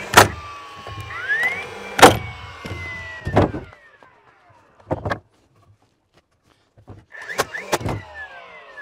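Cordless battery-powered framing nailer driving nails into framing lumber. Each sharp shot comes after a rising electric whine, and the whine falls away afterwards. There are three shots in the first three and a half seconds, a pause with one small knock, then two more shots near the end.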